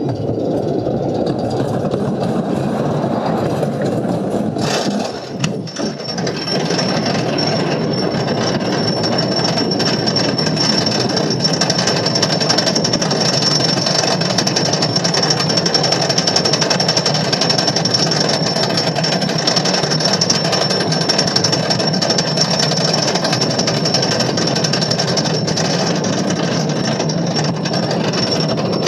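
Wooden roller coaster train running on the track, a loud, steady rumble and clatter with a thin high whine joining about six seconds in.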